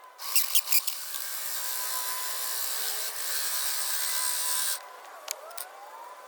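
Power drill running, boring into a masonry block, for about four and a half seconds and then stopping, with a few sharp knocks around it.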